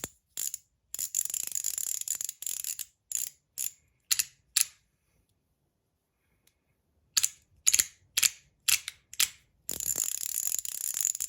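Metal fidget slider clicking as it is snapped back and forth by hand: clusters of sharp clicks, a pause of about two seconds in the middle, then rapid, nearly continuous clicking near the end.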